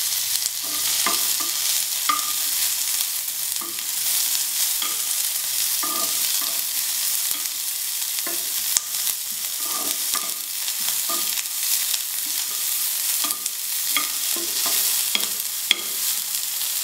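Sliced onion sizzling in hot oil in a frying pan, with a metal spoon stirring and scraping repeatedly against the pan.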